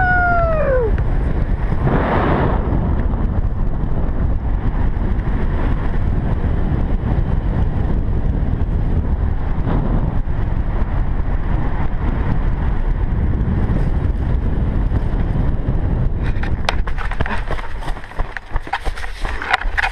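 Heavy wind buffeting the microphone during a BASE jump, a steady rumbling rush. A shouted whoop falling in pitch dies away in the first second, and the wind eases near the end amid some rustling crackles.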